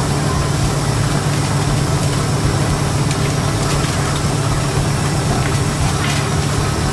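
Steady low hum of a running machine, with a few faint clicks over it.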